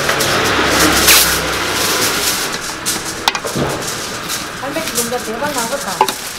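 Indistinct voices in short stretches over a steady hiss, with one sharp click a little past three seconds in and a brief rustle about a second in.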